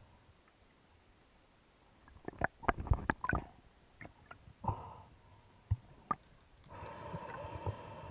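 Underwater recording of a freediver's spearfishing gear: a quick cluster of sharp clicks and knocks a couple of seconds in, a few single knocks after it, then a steady rushing hiss near the end.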